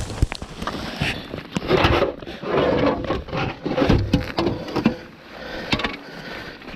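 Irregular knocks, clicks and scrapes of a fish and gear being handled in a boat, including contact on a hard surface.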